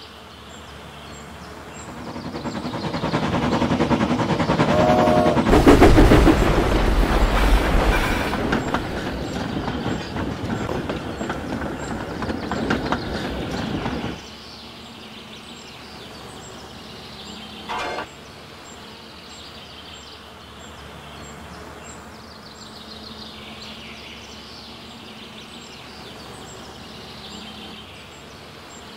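A train passing, added as a sound effect: rumble and rapid wheel clatter swell over a few seconds, peak about six seconds in, and cut off abruptly about fourteen seconds in. A short burst of noise follows near eighteen seconds, then a quiet steady background.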